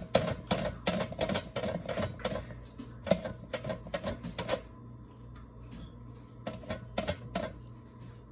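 Crisp cucumber being pushed across a sharp vegetable slicer blade, a quick run of clicks about four or five a second that stops about halfway, then a few more strokes near the end.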